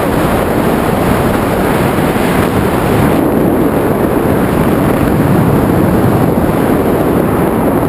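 Freefall wind rushing over a wrist-mounted camera's microphone during a tandem skydive: a loud, steady roar of wind noise.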